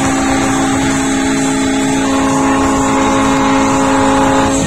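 Ships' horns from moored yachts sounding long, steady blasts, a low note held throughout and another joining about two seconds in.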